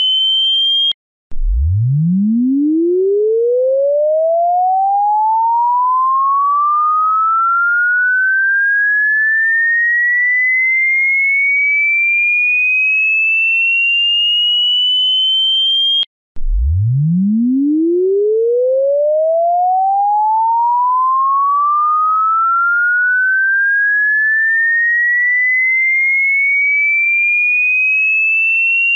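A single pure electronic tone sweeping slowly upward from a deep hum to a high whistle. It cuts off about a second in, starts again from the bottom, climbs for about fifteen seconds, and repeats.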